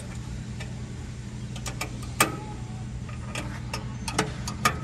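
Sharp metallic clicks and taps as the resaw's blade guide hardware is handled and adjusted: one loud click a little past two seconds in, then a quick run of lighter clicks near the end. A steady low hum runs underneath.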